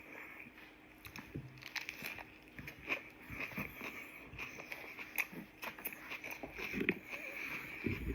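Close-up chewing of a turkey sandwich with raw vegetables: irregular crunches and wet mouth clicks.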